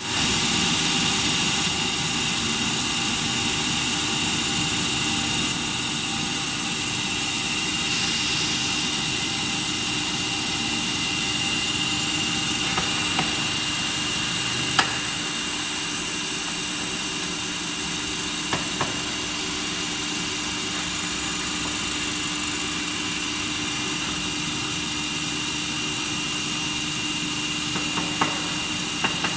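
Friction stir welding machine running steadily on a coldplate: a constant machine whine with several steady tones over a noise hiss, and a few short clicks along the way.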